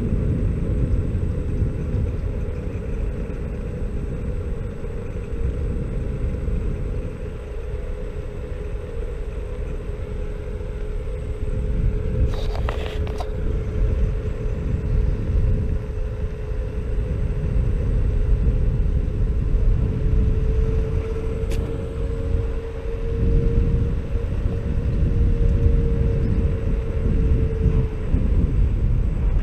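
Xiaomi Mi Scooter Pro 2 electric scooter riding along asphalt: a low rumble of wind and tyres on the road, with the front hub motor's steady whine, which rises a little in pitch about two-thirds of the way through. A short rattle a little under halfway.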